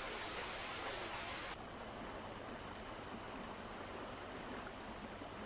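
A steady rushing hiss of water that switches abruptly, about a second and a half in, to a softer running stream with an insect trilling continuously at a high pitch.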